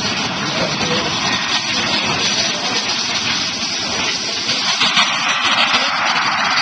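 The jet engines of a large radio-controlled model four-engine jet transport, running at high power with a steady rushing noise as it takes off, growing a little louder about five seconds in.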